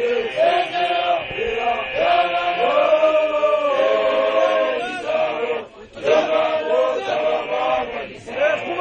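A group of Basotho initiates chanting a traditional song together, unaccompanied, in sung phrases with a brief break about six seconds in.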